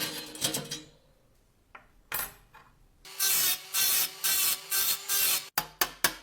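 Hand scrubbing of rust from the metal of a vintage mechanical cash register, in rubbing strokes of about two a second after a short pause. Near the end a run of sharp, evenly spaced clicks, about four a second, begins.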